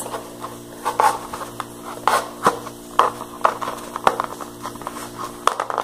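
A wooden pencil being pushed through holes in a small cardboard box, scraping and rubbing against the cardboard, with scattered clicks and knocks as the box is handled and turned.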